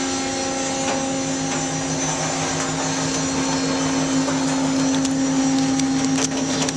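Full-penetration closed-door baler running through a compression cycle: its hydraulic power unit makes a steady hum with a fast, even low pulsing. Light ticking and rattling comes in near the end.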